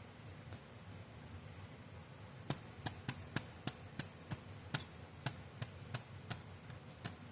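A run of faint, sharp clicks or taps, about three a second, starting about two and a half seconds in and stopping shortly before the end.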